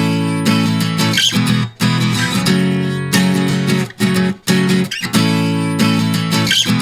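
Background music: a guitar tune with sustained chords, broken by short gaps about once a second.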